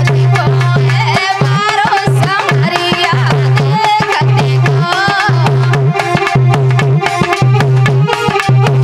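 Indian folk dance music: a quick, steady hand-drum beat over a held low drone, with a bending melody line on top.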